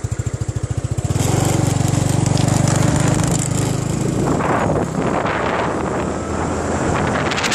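Small motorbike engine running steadily while riding along, with wind rushing over the microphone growing stronger from about four seconds in.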